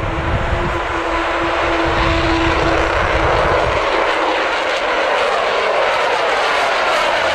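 Delta Ray RC delta-wing plane's electric motor and propeller buzzing steadily as it flies overhead, the tone fading and dipping slightly in pitch about halfway through as it passes.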